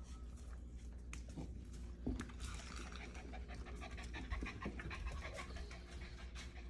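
A ten-week-old Lagotto Romagnolo puppy panting, with faint, quick breaths.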